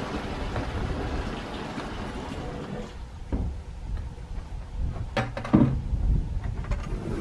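Steady rushing noise for about three seconds, then a quieter stretch with a few scattered clicks and knocks, the loudest a pair about five seconds in.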